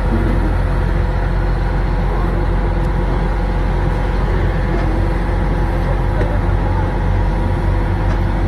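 Heavy machinery engines running steadily at close range: a yellow excavator digging, with a tractor alongside. It is an even, low mechanical hum that does not rise or fall.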